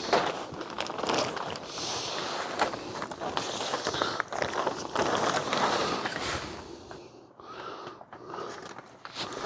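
Plastic greenhouse cover rustling as it is handled and pulled onto the frame, with scattered clicks and knocks; the rustling eases off near the end.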